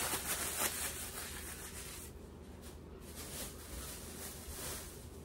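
Soft rustling of clothes being handled, a few rustles in the first second, then faint room noise.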